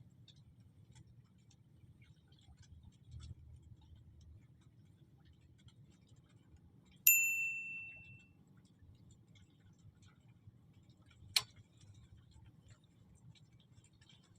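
A single bright metallic ping about halfway through that rings and fades over about a second, then one sharp click a few seconds later, over a faint low hum.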